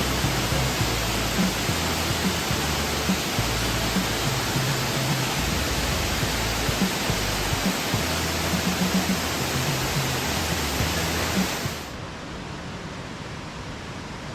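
Inglis Falls waterfall rushing with a loud, steady roar of falling water. The rush drops sharply in level near the end.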